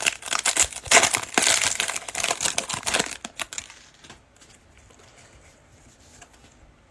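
Crinkling of a foil trading-card pack wrapper being torn open and handled for about three and a half seconds, then quiet with a few faint clicks.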